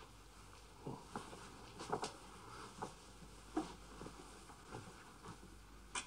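Quiet room tone with a handful of faint, brief rustles and soft clicks spread through it, like small movements of people close by.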